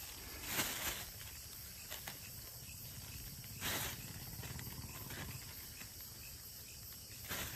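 Faint steady chirring of night insects, with three brief rustles as a hand sorts small fish on a nylon fishing net.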